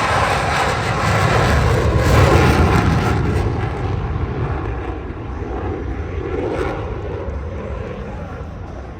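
Boeing F/A-18 Super Hornet jet passing with a loud jet-engine rush. It is loudest about two and a half seconds in, then fades away steadily.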